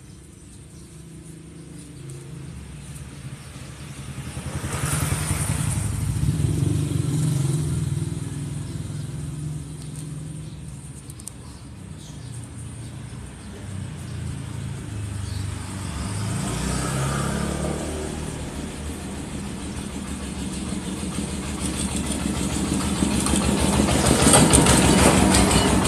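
A motorcycle engine running nearby, its low hum swelling about four seconds in, easing off, then growing louder near the end.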